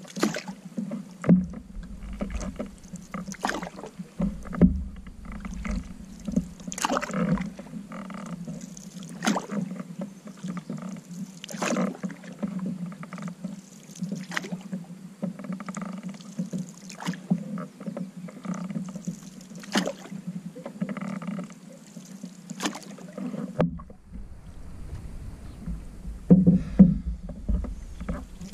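Canoe paddles dipping and pulling through river water in an even rhythm, a stroke about every two and a half seconds, with water moving along the hull over a steady low hum.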